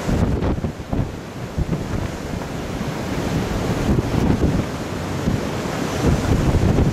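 Strong wind buffeting the microphone in irregular gusts, over the steady rush of heavy surf breaking on the shore.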